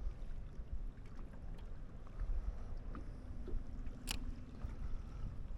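Wind buffeting the microphone over the low rumble of a small fishing boat on the water, with a few light knocks and one sharp click about four seconds in.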